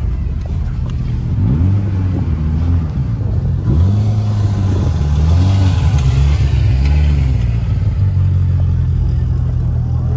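A vehicle engine revs up and down over and over while driving on a rough dirt track, then runs at a steady pitch for the last few seconds.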